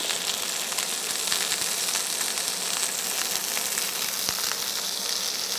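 Lamb rib chops searing in hot fat in a stainless steel frying pan over high heat: a steady sizzle with faint crackles.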